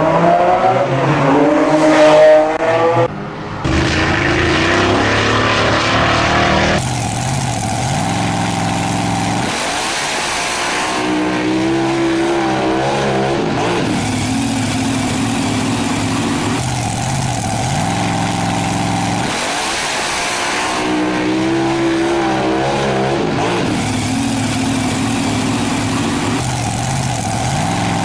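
Dubbed-in car engine sound effect: an engine revving up with rising pitch, a brief drop about three seconds in, then a looped pattern of revving and steady running that repeats about every nine to ten seconds.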